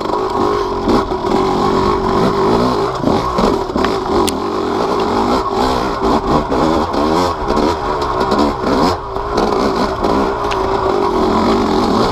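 Yamaha YZ250 single-cylinder two-stroke dirt bike engine being ridden hard, its revs rising and falling over and over as the throttle is worked. The engine carries BeRad's Freight Train kit with Boyesen reeds and a heavy flywheel weight.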